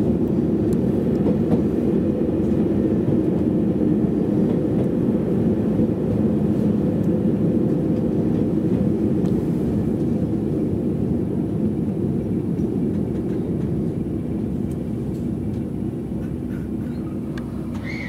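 Inside the cabin of a JR Hokkaido 789 series electric limited express: a steady low rumble from the running train, easing off and getting quieter toward the end as it slows to a stop at the platform.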